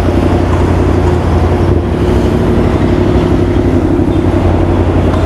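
Motorcycle engine running at a steady cruise, heard through the rider's microphone along with rushing wind noise.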